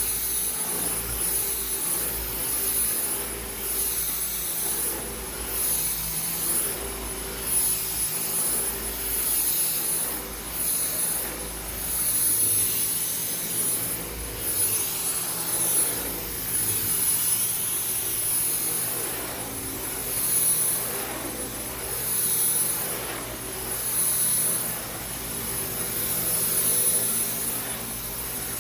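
Dyson V10 Total Clean cordless stick vacuum running with its motorised power head on carpet: a steady high-pitched whine over a rushing airflow. The sound swells and eases about every two seconds as the head is pushed back and forth.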